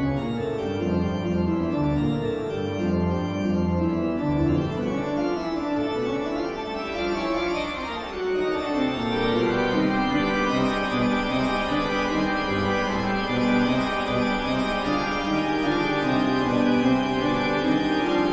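Sustained organ chords in slow-moving, eerie horror music, with a deep bass line in the first few seconds and fuller chords from about eight seconds in.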